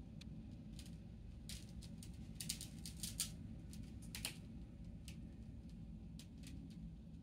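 Sharp plastic clicks and scratches from a cat pawing and biting a suction-cup spring toy on a plastic tray, a quick run of them in the middle with a few scattered either side, over a low steady hum.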